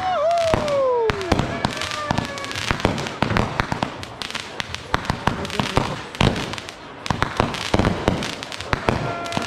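Fireworks going off in quick succession, a dense string of sharp bangs and crackles, with a whistle falling in pitch near the start.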